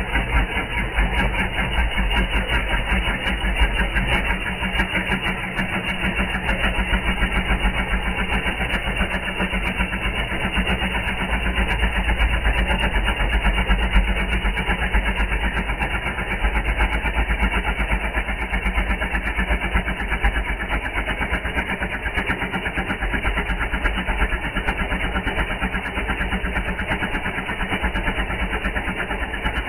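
Cordless tyre inflator's electric motor driving its small piston pump, running steadily with a fast, even chatter of pump strokes.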